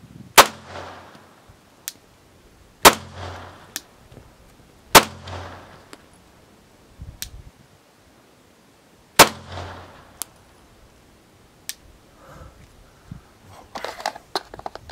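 Four single shots from a 9mm pistol, fired slowly at irregular intervals, each followed by a brief echo. A cluster of light clicks comes near the end.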